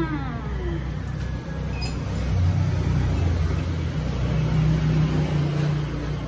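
Low engine rumble of a motor vehicle running nearby, swelling a little in the second half.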